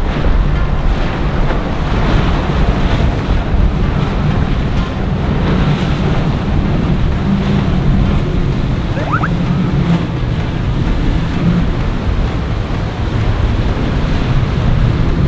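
Wind buffeting the microphone over the steady wash of surf, with the low rumble of boat engines running beneath it.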